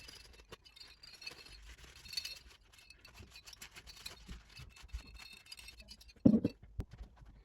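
Small clinks and scratches from computer hardware being handled, then a single dull thump about six seconds in, like a part being set down, with a sharp click just after.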